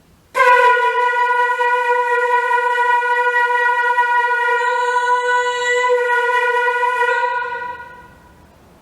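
A wind instrument sounding one long, steady, held note that starts abruptly, lasts about seven seconds, then fades away.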